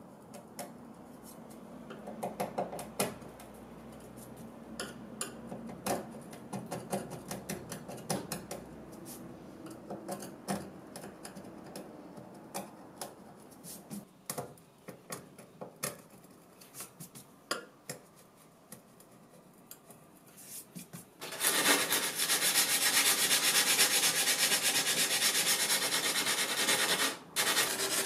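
A metal scraper blade picks and scrapes dried crumbs of old material off mirror glass: scattered short scrapes and clicks. About 21 seconds in, hand sanding with abrasive paper starts, a loud continuous rubbing. It breaks off briefly near the end and goes on as regular back-and-forth strokes.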